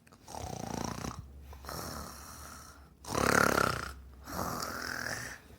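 Snoring: four long snores in a row, the loudest about three seconds in, the last ending on a rising whistle. It is the storybook dog's snore, loud enough to keep the other animals awake.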